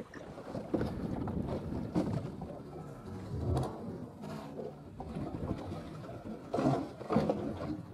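Irregular knocks and bumps in a small boat as a freshly landed bluefin tuna is handled on board, over a steady background of water and wind noise.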